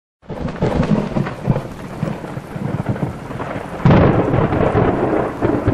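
Thunder rumbling over heavy rain, with a sudden louder thunderclap about four seconds in.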